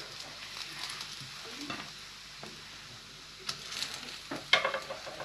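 Burger patties sizzling steadily on a tabletop grill. Metal tongs clack against the grill grate several times in the second half.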